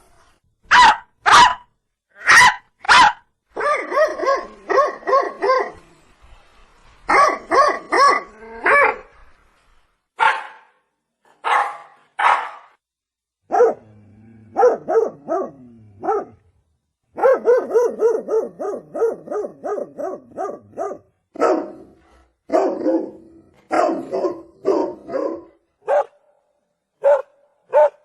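Dog barking: a few single loud barks, then quick runs of barks several to the second, broken by short pauses.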